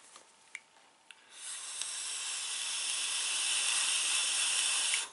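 Box-mod electronic cigarette being fired during a long draw: a steady hiss of air and vaporising e-liquid through the tank, starting about a second in, lasting about four seconds and cutting off suddenly when the draw ends.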